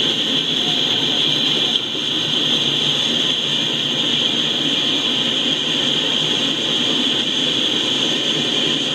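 Freight train cars rolling past: a steady rumble and hiss of steel wheels on the rails, with a strong high band of noise running all through.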